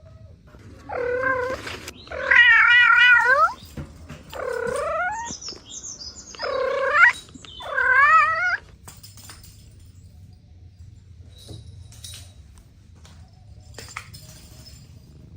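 A cat meowing five times in quick succession over about eight seconds, the second and last calls long and wavering, then faint rustling.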